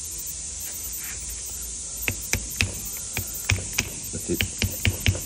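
Light, sharp taps of a small hammer on a bent steel tool seated on the piston of a Detroit 6V92 turbo boost modulator, about a dozen unevenly spaced strokes starting about two seconds in, over a steady hiss.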